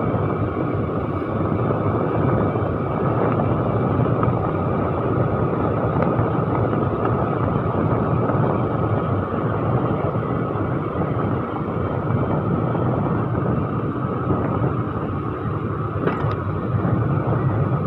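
A scooter riding at a steady speed: its small engine running under an even rush of wind and tyre noise on the asphalt.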